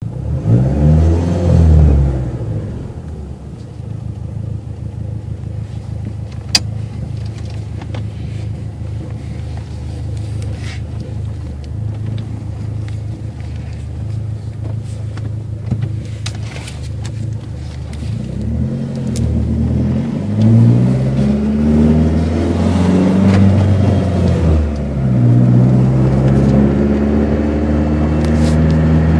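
Dodge SRT-4's turbocharged four-cylinder engine briefly revved, then idling, then given several short pulls from about 18 s in, the pitch rising and falling each time, and held at higher revs near the end. A single sharp click sounds about six seconds in.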